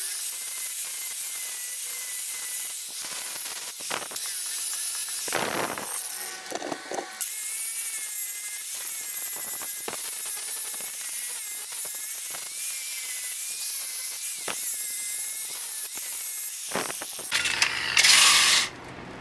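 Angle grinder with a flap sanding disc smoothing the welded edges of a steel anvil: a steady motor whine over the hiss of abrasive on steel, dipping briefly a few times, with a short louder burst near the end.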